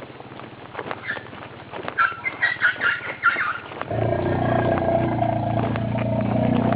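Asian elephant giving a run of high-pitched squeaks and chirps, a sign of her fear. About four seconds in, a steady motor engine starts running and carries on.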